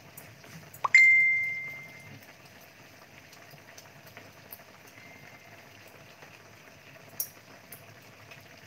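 Chicken parboiling in a wok, a faint steady bubbling. About a second in, one sharp metallic clink rings on and fades over about a second. A lighter click comes near the end.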